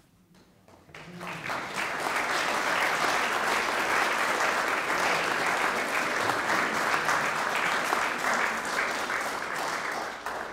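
Audience applauding, swelling about a second in, holding steady, and dying away near the end.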